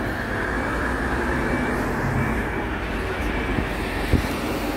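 Steady rumble of city street traffic, with a single sharp knock about four seconds in.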